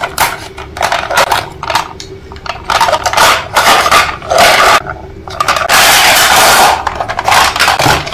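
Small hard objects clattering and scraping against each other in a run of irregular bursts, with a longer rush of scraping about six seconds in.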